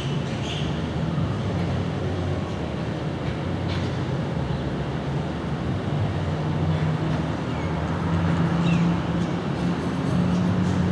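Twin-engine jet airliner climbing out overhead after takeoff: a steady jet engine roar that grows a little louder in the second half as the aircraft draws closer.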